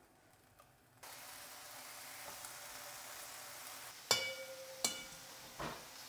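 Bacon frying in a pan: a steady sizzle starts about a second in. About four seconds in come two sharp ringing clinks, then a duller knock near the end.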